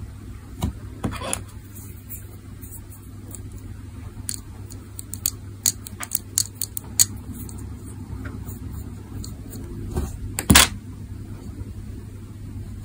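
Fingers handling a small die-cast toy car and a clear plastic strip: scattered light clicks and taps, a cluster of them about halfway through and the loudest tap near the end, over a steady low hum.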